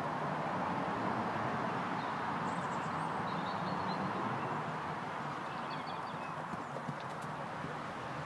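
A horse's hooves beating on a sand arena surface as it canters in circles on a lunge line, a steady, dull rhythm without sharp clops.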